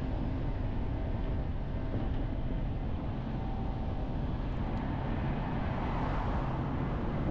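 Steady road and wind noise from a car driving, with a low running hum beneath. A broad swell of noise rises and fades about six seconds in.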